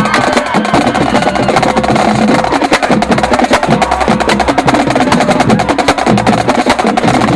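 Marching drum line playing a fast, dense passage: snare drums and tenor drums (quads) with rapid stick strokes close together, and bass drums underneath.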